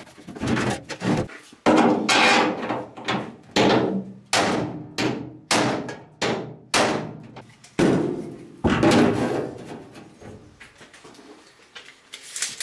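Hand hammer striking a dull-ended bolt, used as a punch, against the back side of a tailgate to push a dent out. A quick, uneven run of sharp metallic strikes, about two a second, each ringing briefly in the sheet metal, stopping about ten seconds in.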